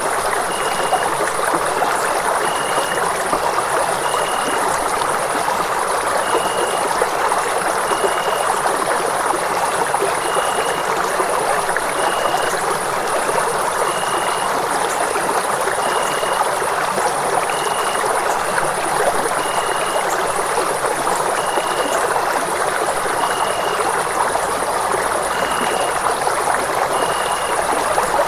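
Running water flowing in a steady, unbroken rush, with a faint high tone pulsing about every two seconds over it.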